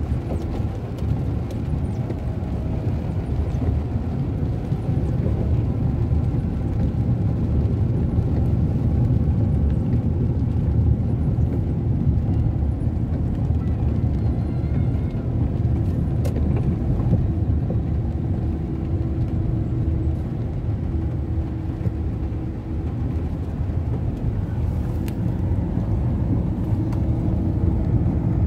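Steady low rumble of a moving vehicle's engine and tyres on the road, heard from inside the vehicle. A faint steady hum comes and goes over it about halfway through.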